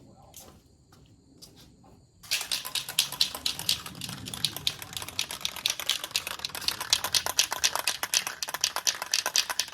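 Aerosol can of bare-metal primer being shaken hard, its mixing ball rattling in rapid clicks. The rattling starts suddenly about two seconds in.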